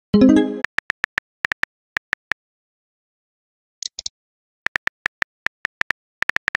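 Chat-app sound effects: a short pitched message chime at the start, then quick runs of keyboard tap clicks. About four seconds in there is a brief higher blip, then another run of typing taps.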